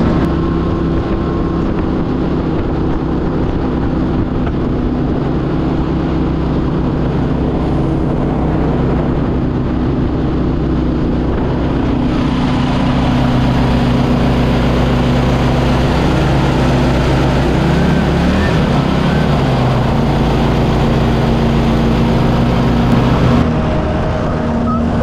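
Mud boat engine running at speed, a steady loud drone with wind and water rush; its pitch dips and climbs back up about two-thirds of the way through.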